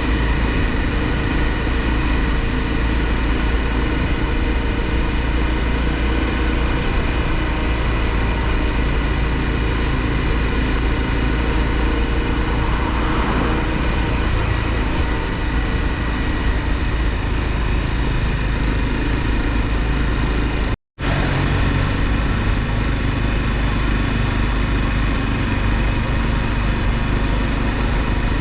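Honda CRF250L single-cylinder engine running steadily under way at a fairly constant speed, with a heavy low rumble under it. The sound cuts out for a split second about two-thirds of the way through.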